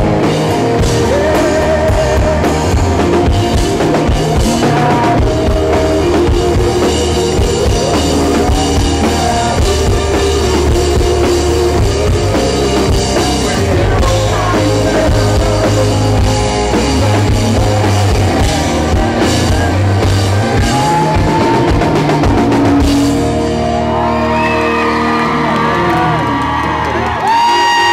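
Live rock band playing loud through a PA: drum kit, electric guitar and a lead singer. About 23 seconds in, the drums and bass drop away and the song winds down to held tones.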